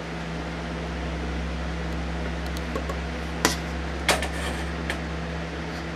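Steady electric motor hum, with three sharp knocks a little over halfway through.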